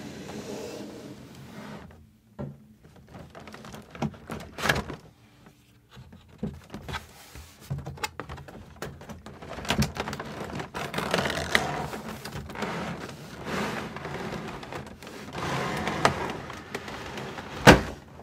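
Cardboard figure box being opened by hand: the inner box scrapes and slides out of its outer sleeve and its lid is lifted, with rustling and small knocks throughout. A single sharp knock near the end is the loudest sound.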